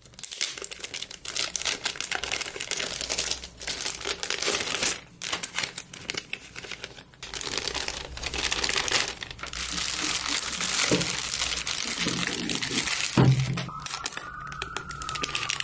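Clear plastic packaging bags crinkling and rustling as hands unwrap and handle a cable and a power supply brick, in short bursts with brief pauses. A heavier knock about thirteen seconds in.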